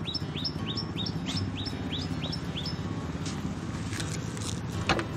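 A bird calling a quick run of rising chirps, about three a second, that stops about halfway through. Near the end comes one sharp click as the car's tailgate latch releases.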